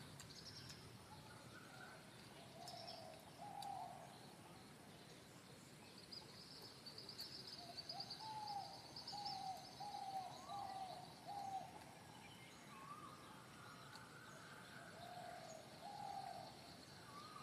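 Faint outdoor bird calls: short low hooting notes, including a run of about five in a row a little under a second apart, with higher thin chirps and a trill above them.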